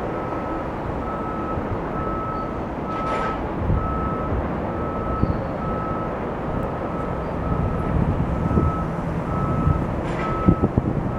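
A vehicle's reversing alarm beeping steadily, one even high tone repeating about one and a half times a second, over a constant low rumble of wind and traffic.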